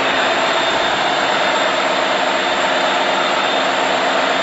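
Loud, steady engine noise of a large vehicle or aircraft, with a thin high whine running through it.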